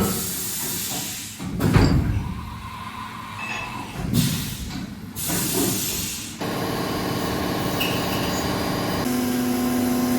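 CNC milling machine sounds in cut-together shots: hissing, rushing passages that change abruptly several times, then from about six seconds in a steady running sound with several fixed tones.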